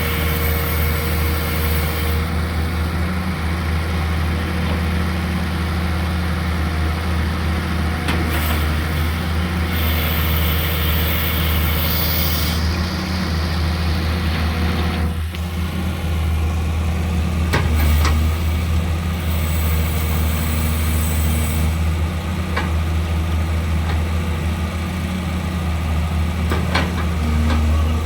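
Sumitomo LS260 hydraulic excavator's diesel engine running steadily. A high hiss builds and cuts off suddenly around the middle, and a few sharp clanks come in the second half.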